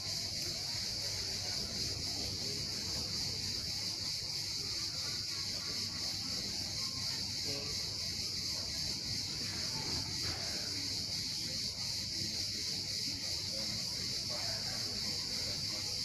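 Steady high-pitched insect chorus shrilling without a break, the summer sound of insects in a park's trees and grass.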